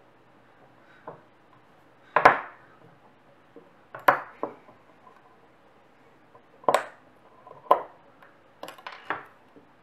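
Small screwdriver undoing the head-actuator pivot screw in the steel cover of a 3.5-inch hard drive: scattered sharp metallic clicks and clinks at irregular intervals, the loudest about two seconds in.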